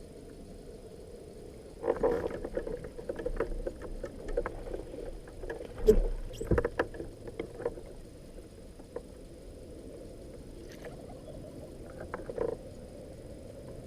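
Sounds aboard a small fishing boat: a steady low hum with water noise. A run of irregular clicks and knocks starts about two seconds in and lasts several seconds, with one louder knock in the middle. A shorter burst of clicks comes near the end.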